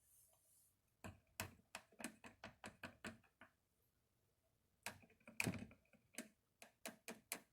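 Runs of light taps and clicks, about three or four a second, with a pause in the middle: utensils and containers handled while baking soda is added to a slime mixture.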